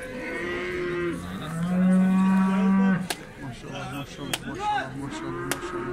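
Cattle mooing: one long, loud moo that stops abruptly about halfway through, then a second moo near the end. A few sharp knocks come in between.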